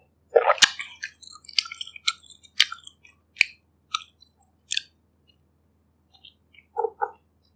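Close-miked chewing of food with a series of sharp, crisp clicks about every half second for the first five seconds, then two short muffled sounds near the end.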